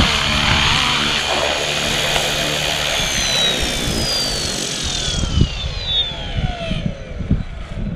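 Fly Wing FW450 V2 RC helicopter's electric motor and main rotor spooling down after landing. The steady run gives way, about three seconds in, to whines that fall in pitch and fade out near the end.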